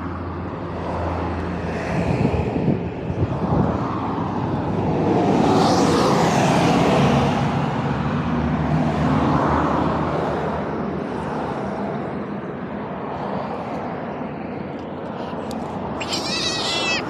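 Cars passing on a busy road one after another, the noise swelling and fading and loudest about six seconds in. Near the end a kitten gives a short high cry as it is grabbed.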